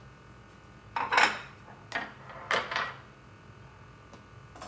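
Plates and bowls being set down and slid about on a stone countertop: a handful of sharp clinks and knocks, the loudest about a second in and more around two to three seconds in.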